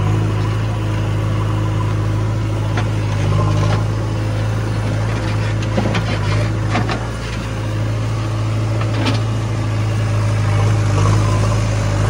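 JCB 3DX backhoe loader's diesel engine running at a steady speed while it digs and loads soil. Scattered knocks and the rattle of soil pouring from the bucket into the tractor trolley come around the middle.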